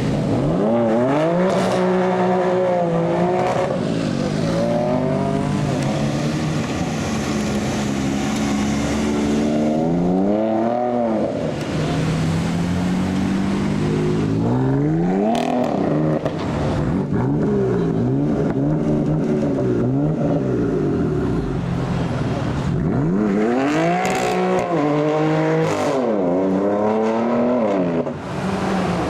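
BMW M4's twin-turbo straight-six through an aftermarket sports exhaust, revved up and down repeatedly, its pitch climbing and dropping several times.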